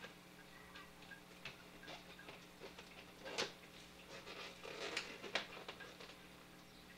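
Thin plastic bag crinkling and rustling as it is handled, with scattered light clicks and taps and two louder crackles about three and a half and five seconds in, over a faint steady hum.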